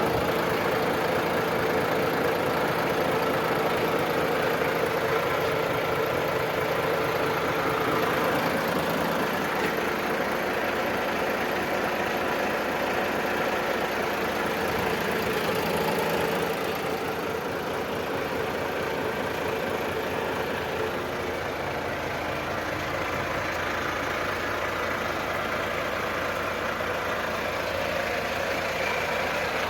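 Engine of a Volvo working machine running steadily, its note shifting about 8 seconds in and dropping a little in level about 16 seconds in.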